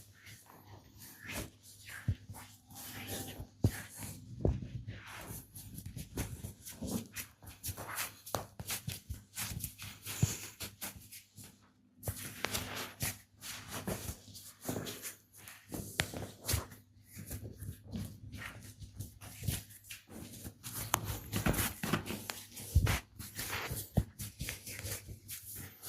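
Hands massaging bare skin: rubbing, with many irregular short sharp taps and cracks. There is a brief gap about twelve seconds in.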